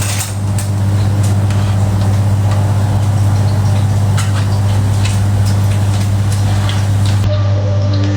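A steady low mechanical hum, with faint scattered clicks.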